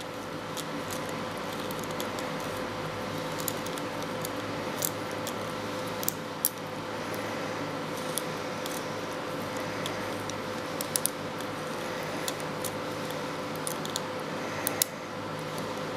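Scattered small clicks and light rattles from a Levolor cordless shade's plastic spring cartridge being turned by hand, its coiled metal spring being wound off one roll onto the other, over a steady background hum.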